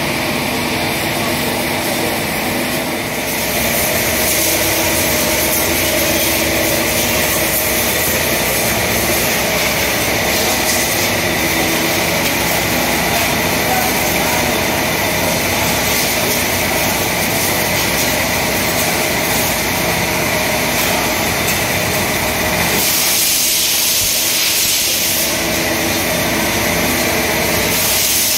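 High-pressure water jet hissing against a motorcycle's wheel and bodywork, over the steady hum of the washer's motor pump. The spray gets louder about three seconds in.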